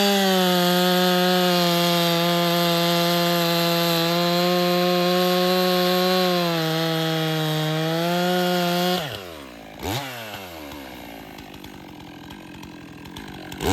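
Stihl 400 C chainsaw with a 20-inch bar held at full throttle, cutting through white ash, its pitch sagging slightly under load for a moment. About nine seconds in the throttle is released and it drops to idle, blipped twice.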